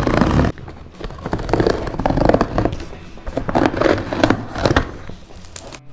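Packaging of a foot massager being handled and opened, rustling and crinkling in irregular bursts.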